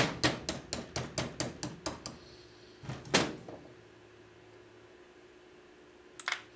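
A small hammer taps a steel pin punch against a revolver frame in quick strikes, about four a second, growing softer and stopping about two seconds in. A single louder knock follows about three seconds in, and a short clatter near the end.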